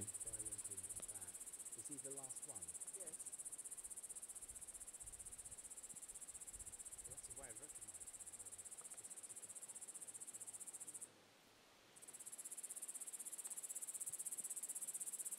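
Crickets trilling: a steady, high, fast-pulsing chorus that cuts out for about a second two-thirds of the way through, with faint low voices murmuring twice.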